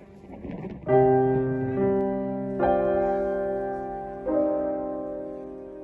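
Slow background piano music: four soft chords struck a second or so apart, each left to ring and fade.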